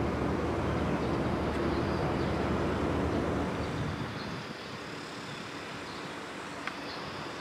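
A passing vehicle's low engine rumble with a steady hum, fading away about four seconds in.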